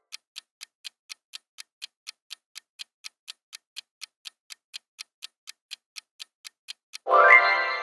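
Quiz countdown timer sound effect ticking evenly, about four ticks a second, then about seven seconds in a loud ringing chime that fades, marking time up and the answer reveal.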